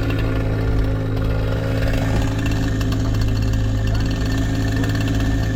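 Engine of a compact clean-up machine running steadily at an even speed.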